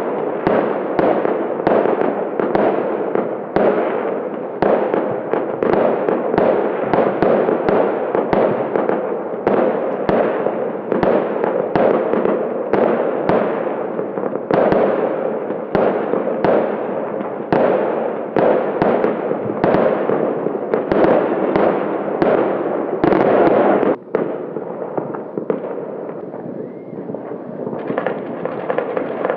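Fireworks and firecrackers going off in a constant barrage, sharp bangs about twice a second over a continuous crackle. The barrage thins and grows quieter over the last few seconds.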